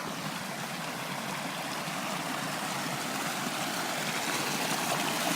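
Small mountain stream running, a steady rush of water that grows gradually louder.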